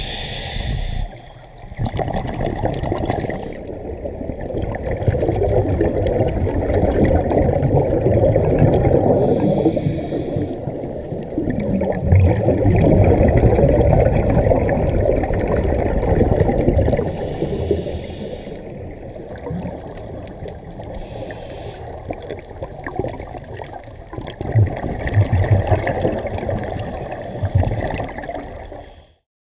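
Scuba regulator breathing heard through an underwater camera housing: long rumbling, gurgling surges of exhaled bubbles, broken a few times by short hissing inhalations through the regulator. The sound cuts off abruptly near the end.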